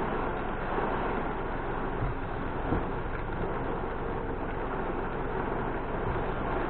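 Car driving through heavy rain: a steady wash of rain and tyre noise on a wet road, with a few soft knocks.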